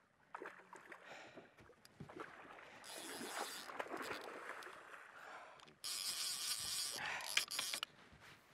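Water splashing as a hooked tarpon thrashes at the surface beside the boat. It comes in two bouts, a shorter one about three seconds in and a louder, longer one starting suddenly about six seconds in.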